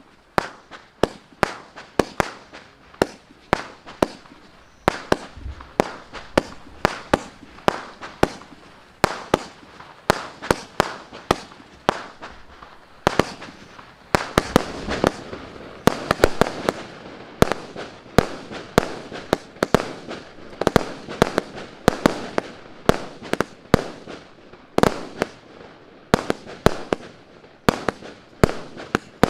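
A 300-shot firework cake (the Armageddon MC147 battery) firing shot after shot, sharp bangs at about two to three a second with no break. The bangs come thickest, with a hissing haze between them, about halfway through.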